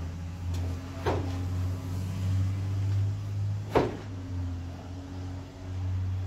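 Composite decking board knocking against the pickup's steel bed twice, about a second in and again just under four seconds in, as it is worked under the wheel well. A steady low hum runs underneath.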